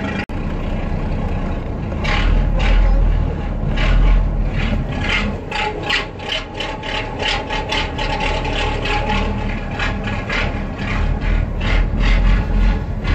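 The diesel engine of an old MAN 22.190 truck idling with a steady low rumble. Irregular scraping and knocking from the phone being handled close to the microphone runs over it.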